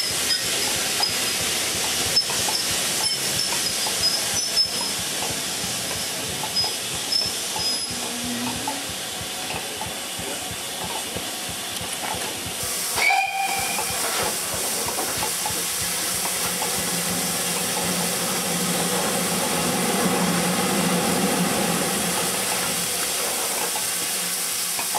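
A steam train with steady hissing steam throughout. In the first half, coaches roll past with scattered clicks from the running gear. About halfway there is a short high tone, after which GWR Castle-class 4-6-0 locomotive 5029 Nunney Castle stands hissing steam, with a low rumble under the hiss.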